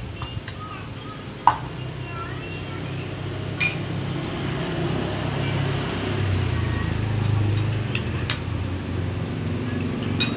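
A few sharp clicks or knocks, the loudest about a second and a half in, over a steady low rumble, with faint voices in the background.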